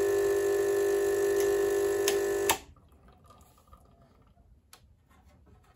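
Rancilio Silvia espresso machine's vibratory pump humming steadily while pulling a shot, then switched off about two and a half seconds in; a few faint clicks follow.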